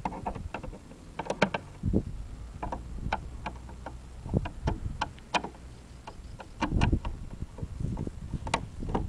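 Irregular clicks and light knocks of a small screwdriver working on the plastic housing of a Kia Rio door mirror as its screws are undone, with spells of low rumbling, the heaviest about seven seconds in.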